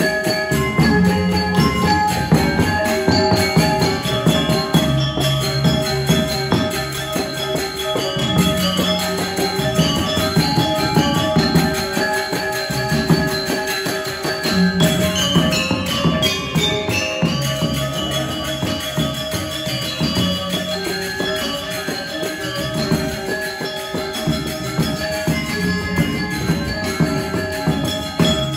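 Balinese gamelan playing topeng dance accompaniment: bronze metallophones ringing in a dense, shimmering, rhythmic texture over steady low pulses.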